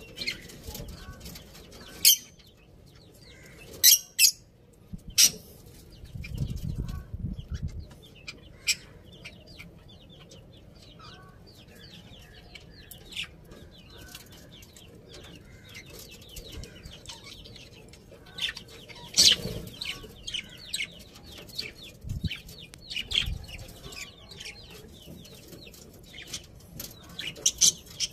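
Budgerigars chirping: many short, sharp, high chirps scattered irregularly throughout, with a low rumble lasting a couple of seconds about six seconds in.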